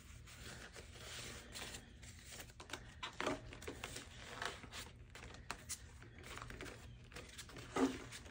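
Faint rustling and crinkling of paper bills being tucked into a savings challenge envelope, with scattered light clicks and one slightly louder rustle near the end.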